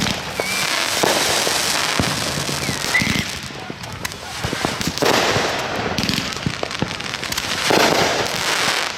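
Fireworks going off: a steady run of sharp pops and crackles, swelling into denser crackling bursts about a second in, around five seconds in and near the end.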